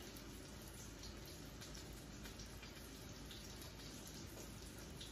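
Rolled potato tacos frying in oil in a stainless steel pan: a steady, quiet sizzle with light crackling.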